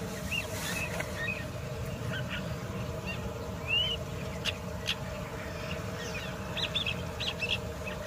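Long-tailed shrike singing: a loose, varied run of short chirps, whistled notes that rise and fall, and a few sharp clicks, with the notes coming thicker near the end.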